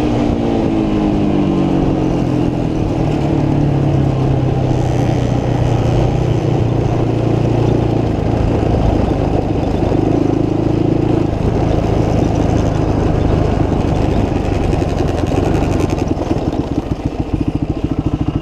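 Motorcycle engine running while ridden. The revs drop over the first few seconds, then hold steady, and near the end fall to low revs where the separate firing beats can be heard.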